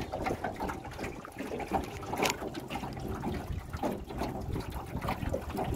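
Lake water lapping and splashing against the hull of a small metal boat under way, an irregular patter of small splashes with no engine tone.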